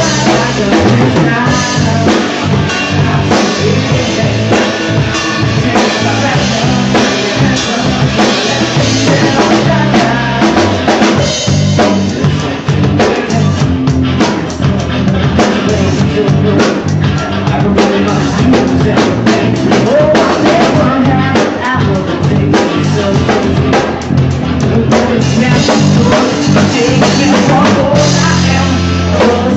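Live rock band playing a song, with the drum kit's kick drum and cymbals driving a steady beat under a sung vocal line.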